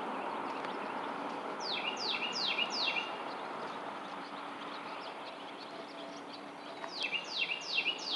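A songbird sings twice, a few seconds apart. Each song is four quick notes in a row, each note sliding down in pitch with a short lower note after it. A steady rushing background noise runs under the songs.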